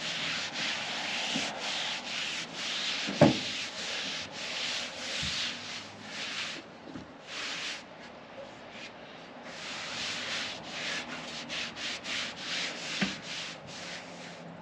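Cloth rag rubbed back and forth over the weathered, rusty paint of a 1977 Ford F250's sheet-metal body, about two to three scrubbing strokes a second, with a pause of a few seconds about halfway. A sharp knock about three seconds in is the loudest sound.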